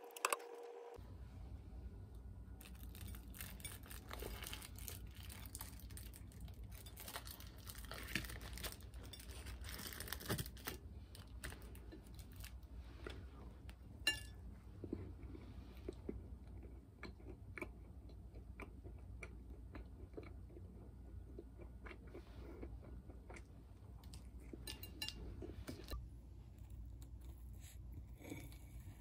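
Hands tearing and breaking apart a crusty scone and bread over a ceramic plate: the crust crackles and crunches in many small clicks. A steady low room hum runs underneath.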